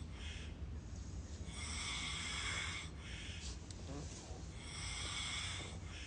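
A sleeping person snoring: two long, hissing breaths with a high whistle in them, each a second or more long, with short breaths between.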